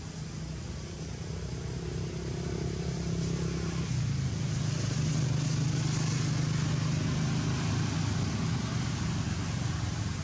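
A motor vehicle engine running with a steady low hum. It grows louder over the first few seconds, then eases slightly.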